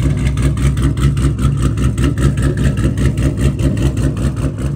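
Dodge Charger's cammed 392 Hemi V8 idling with an even, pulsing lope from the exhaust.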